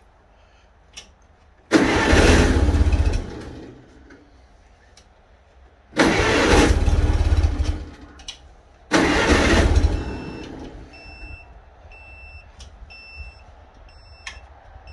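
Tractor engine cranked over by its starter on a jump pack in boost mode, in three separate bursts of about two seconds each. Then the jump pack beeps steadily, about two short high beeps a second, its warning after repeated starts within a few minutes (safe mode).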